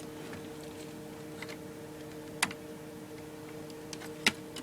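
A few sharp clicks and taps from computer parts being handled and fitted during reassembly, the loudest about halfway through and another near the end, over a steady low hum.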